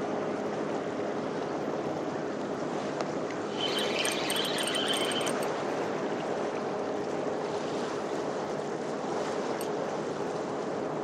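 Steady wash of seawater and wind at the breakwater. About three and a half seconds in, a brief high buzzing with fine clicks lasts a second and a half.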